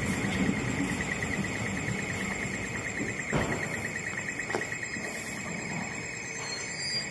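NJ Transit bilevel commuter train rolling slowly alongside the platform and coming to a stop, with a steady high whine and two clunks from the cars a few seconds in.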